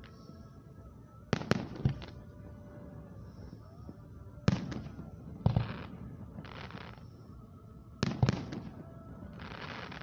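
Aerial fireworks shells bursting in clusters of sharp bangs: two or three about a second and a half in, one each near four and a half and five and a half seconds, and a quick run of three near eight seconds. Each bang is followed by a rumbling tail and some hissing crackle.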